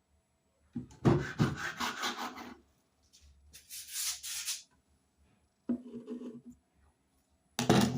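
Knife scraping and tapping on a board as pastry dough is trimmed. There is a run of scrapes and knocks about a second in, a hissing scrape around four seconds, and more scrapes near the end.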